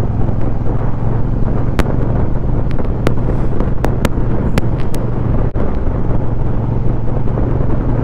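Honda Rebel 1100's parallel-twin engine running steadily at cruising speed with wind rush on the microphone. Irregular sharp crackles cut in throughout, and the sound drops out briefly about five and a half seconds in. The crackling is an audio fault of the dual vlog setup, which the rider blames on the mic or on the splitter into the GoPro.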